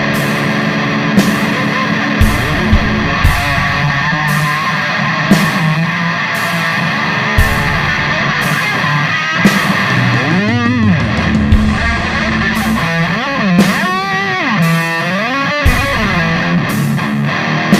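Loud instrumental rock music: distorted electric guitar over a steady drum beat. In the second half the guitar plays wavering, bending lead notes.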